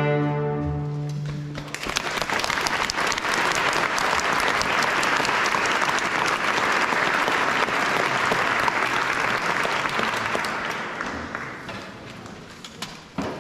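A young string orchestra's final chord fades out, then the audience applauds for about ten seconds, the clapping dying away near the end.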